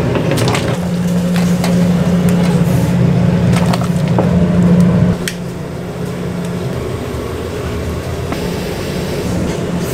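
Commercial kitchen noise from a gas-fired stove under a large pot of boiling water: a steady rush with a low hum that drops away suddenly about five seconds in, and scattered knocks and splashes as meat goes into the water.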